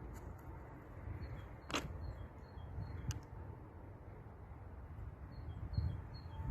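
Low outdoor rumble with faint bird chirps repeating two or three times a second, and two sharp clicks in the first half.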